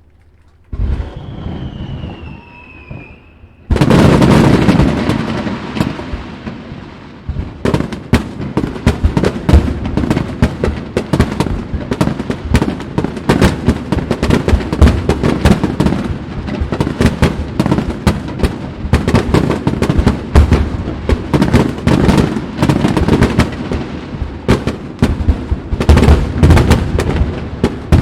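Aerial fireworks finale: a first burst with a falling whistle, a loud boom about four seconds in, then a dense barrage of rapid bangs and crackle that keeps going.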